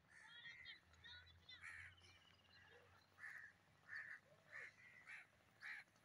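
Crows cawing: a faint series of short calls, coming about once every half second to second.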